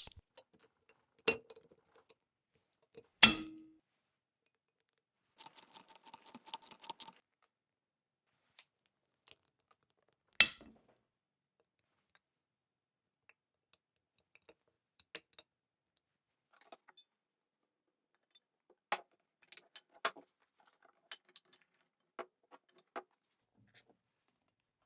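Steel parts of a Handyman farm jack clinking and clicking during reassembly. There are a few sharp metal knocks, the loudest ringing briefly, and a quick run of about a dozen clicks a quarter of the way in. Scattered light ticks follow.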